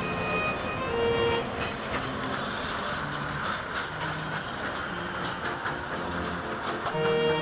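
Articulated low-floor tram passing close by on street rails: a rushing rumble that builds from about two seconds in, with wheel clatter and clicks as the cars go past. Soft string music plays underneath.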